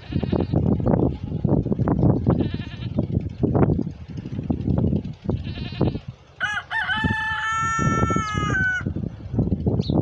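A rooster crows once, a long drawn-out crow starting about six and a half seconds in, over house sparrows chirping in short bursts every couple of seconds. Throughout there is a low, rough rumbling and bumping, loudest in the first half.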